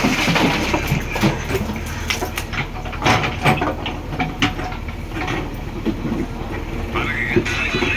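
Heavy diesel engine running steadily, with a run of sharp clanks and knocks in the middle, typical of a backhoe loader at work.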